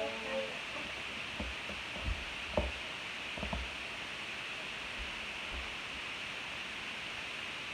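A few soft knocks, spread over the first few seconds, over a steady hiss.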